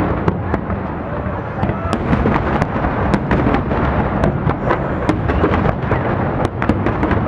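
A fireworks display: a continuous rumble of aerial shell bursts, overlapped by many sharp crackles and pops.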